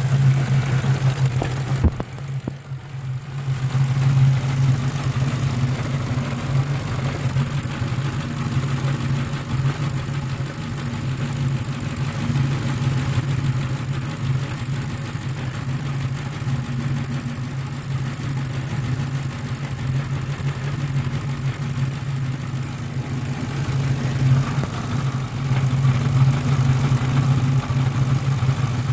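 Ford 4.6 V8 with a Victor Jr intake idling steadily with a busy sound like a sewing machine. It sits at a high idle that a new idle air control valve has not cured.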